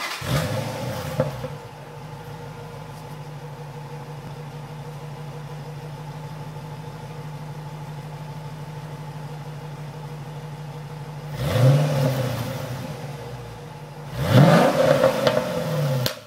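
Dodge Challenger SRT8's Hemi V8 through its stock exhaust, just started and flaring before it settles to a steady idle within about two seconds. It is then revved twice: a short blip that rises and falls, and near the end a longer, louder rev held for about two seconds.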